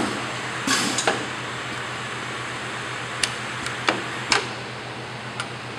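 An automated thick film screen printer with its stack loader running: a steady low hum with several sharp mechanical clicks and clacks at irregular intervals as the mechanism cycles.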